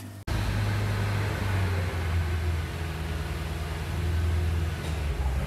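A steady low mechanical rumble that starts abruptly a moment in.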